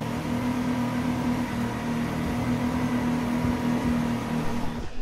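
Steady machine hum with a low drone and a few fixed tones above it, cutting off abruptly near the end.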